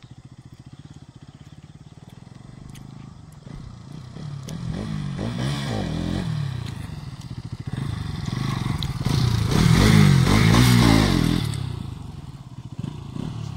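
Bajaj Pulsar NS 200's single-cylinder engine idling, then revved up and down in two bursts during wheelie attempts. The second burst is the louder, and then the engine drops back.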